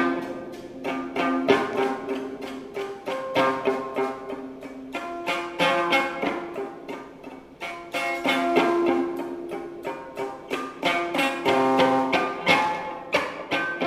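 Electric guitar picked in a quick, continuous run of short notes that ring briefly, quieter around the middle and louder again from about eight seconds in.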